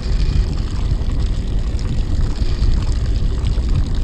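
Steady low rumble on a fishing boat at sea: wind buffeting the microphone over the hum of the boat's engine.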